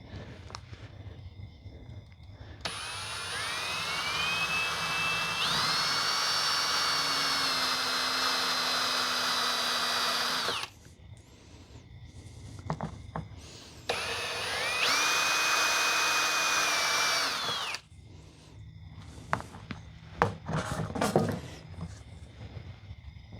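Power drill with a step bit cutting a hole through the wall of a box. The motor runs twice: once for about eight seconds, rising in pitch as it spins up and then holding steady, and once for about four seconds. A few knocks and clicks follow near the end.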